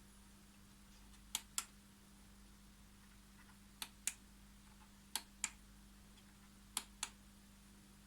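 Pioneer PL-X9 record player making sharp double clicks, four pairs, each a quick tick-tick, repeating every couple of seconds over a faint steady hum.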